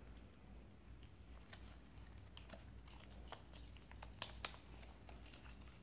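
Faint crinkling and small ticks of a sheet of origami paper being handled and folded, a little louder about four seconds in.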